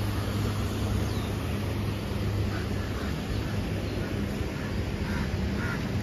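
Steady low drone of a river tour boat's engine as it passes, with a few short bird calls over it.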